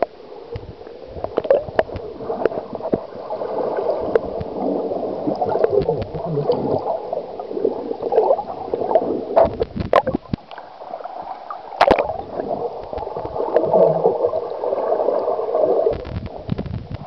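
Seawater sloshing and gurgling around a small waterproof camera held at and just under the surface, heard muffled from in the water, with a few sharp clicks near the middle.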